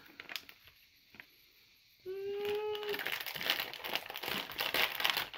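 Foil snack bag being torn open and crinkled by hand, in a dense run of crackling through the second half.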